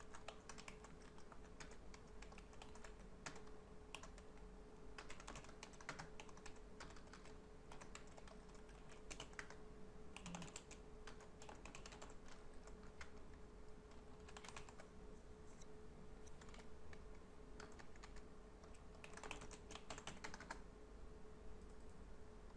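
Typing on a computer keyboard: faint key clicks in irregular bursts, with short pauses between them, over a steady faint hum.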